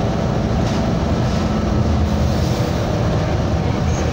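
Moving city transit bus heard from inside the passenger cabin: steady low engine rumble and road noise. A faint steady hum runs through the first half and fades out.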